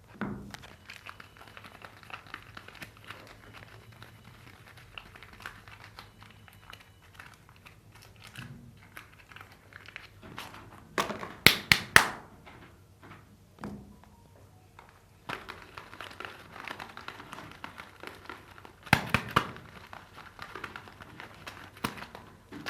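Soap bar packaging being unwrapped by hand: a continuous crinkling of the wrapper, with louder bursts of crackling about halfway through and again near the end.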